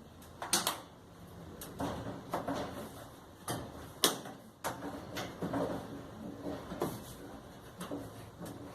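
Scattered clicks and knocks with rustling handling noise as panels and parts of a clothes dryer are handled and fitted back in place; the sharpest knocks come about half a second in and about four seconds in.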